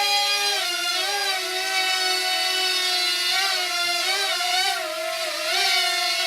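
Parrot Swing mini drone's four electric motors and propellers whining in flight, the pitch wavering up and down as the rotor speeds change with the steering.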